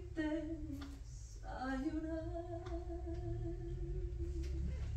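A woman's voice singing wordless held notes, without lyrics. A short falling phrase comes at the start, then one long steady note begins about two seconds in and ends just before the close.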